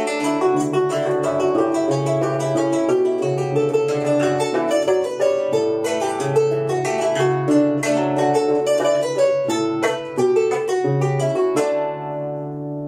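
Llanero harp (arpa llanera) played solo: quick plucked melody runs over a pulsing bass line in the low strings. About a second before the end it settles on a final chord left to ring.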